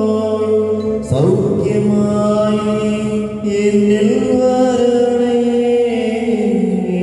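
Slow chanted hymn sung in long held notes that glide gently from pitch to pitch, with a new phrase starting about a second in.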